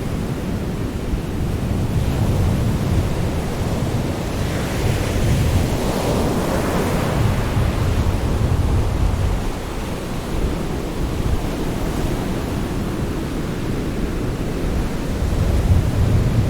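Sea surf: a steady low rumble of waves, with one wave washing in about five seconds in as a hiss that swells and fades.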